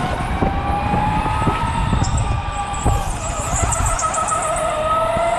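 Electric go-kart's motor whining as the kart is driven, its pitch rising a little and then falling toward the end as speed changes, over a low rumble.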